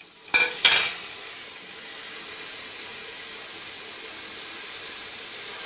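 Two quick clatters of metal kitchenware about half a second in, as a steel plate is handled at the rim of a stainless steel pressure cooker pot. A steady hiss follows and runs on.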